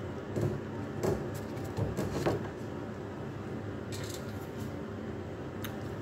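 A few light clicks and knocks, several in the first couple of seconds and two more later, over a steady low hum.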